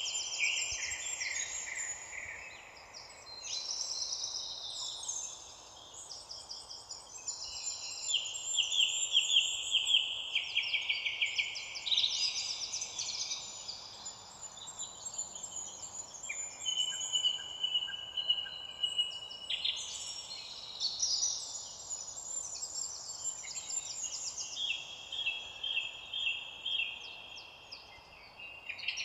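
Several songbirds singing and chirping at once, rapid overlapping trills and twittering, over a faint steady background hiss.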